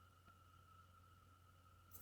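Near silence: room tone with a faint steady high-pitched whine and a low hum.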